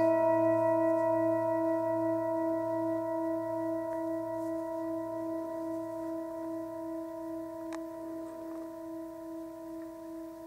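Metal singing bowl struck once, ringing with several overtones at once and slowly fading, its loudness wavering in a gentle pulse.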